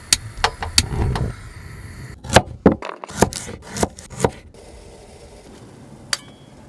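Kitchen knife chopping carrot on a wooden chopping board: a quick run of sharp knocks around the middle, with a few lighter knocks and clatter before it.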